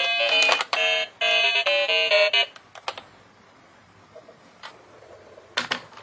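Toy ambulance's electronic sound unit playing a short tune of quick beeping notes that steps up and down in pitch, with clicks from its buttons; it stops about two and a half seconds in. After that only a few faint clicks, and a brief burst of sound just before the end.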